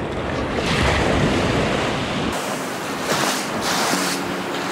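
Small shore-break waves breaking and washing over the sand in the shallows, swelling twice, with wind rumbling on the microphone in the first half.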